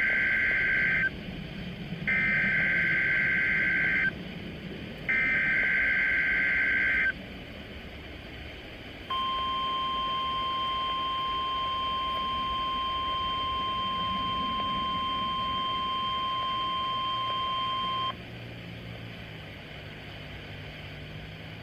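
NOAA Weather Radio Specific Area Message Encoding (SAME) header: three bursts of raspy digital data tones, each about two seconds long with a short gap between. They are followed by the steady 1050 Hz weather radio warning alarm tone, held for about nine seconds and then cut off.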